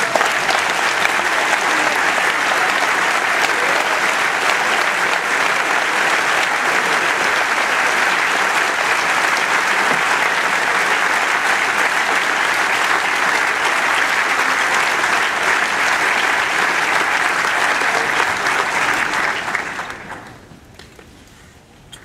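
A large audience applauding, a dense steady clapping that dies away about two seconds before the end.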